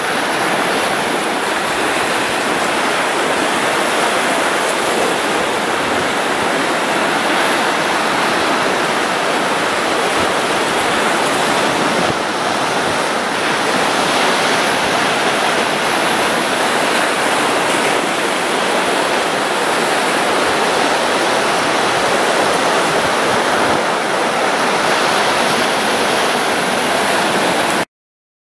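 Sea waves breaking over a rocky shore in a steady rush of surf, with no letup. The sound cuts out briefly near the end.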